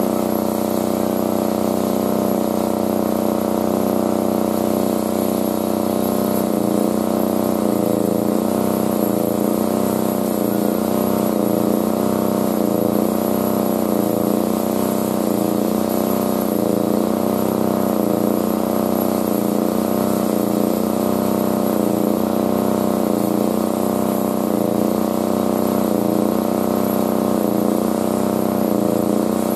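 A steady, engine-like mechanical hum, with a slow regular waver about once a second from a few seconds in.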